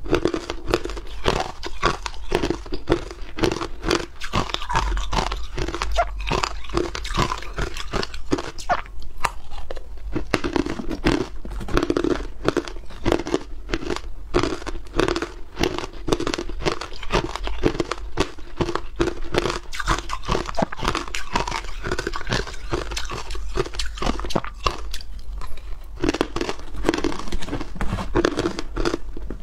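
Hard ice balls being bitten and chewed, a dense, unbroken stream of sharp crunches and cracks picked up close by a clip-on microphone.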